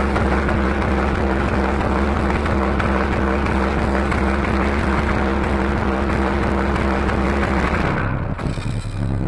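Loud cumbia-style dance music from a sonidero sound system, picked up by a phone as an overloaded, distorted wash of heavy bass. About eight seconds in the bass drops out and the sound thins for a moment, as at a change of track, before the music comes back in full.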